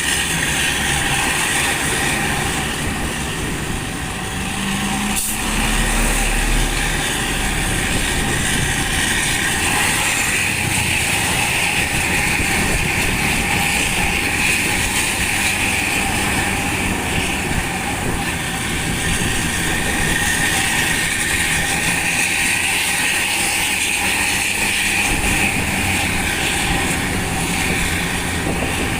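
Hino RK bus's diesel engine running through a loud aftermarket exhaust, heard while following close behind the moving bus: a steady exhaust note mixed with road and wind noise, with one sharp click about five seconds in.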